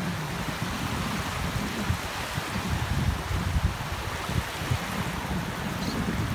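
Small surf lapping and washing up on a sandy shore, a steady wash of water noise, with wind buffeting the microphone in low rumbles.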